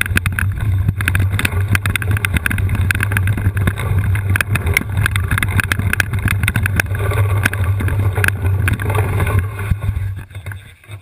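An all-terrain wheelchair rolling downhill over rough ground: a steady low rumble with constant rattling and knocking. It fades out about ten seconds in.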